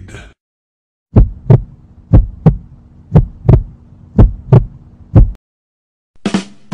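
Heartbeat sound effect: a slow lub-dub, paired low thumps about once a second over a steady low hum, stopping abruptly. A short different sound starts near the end.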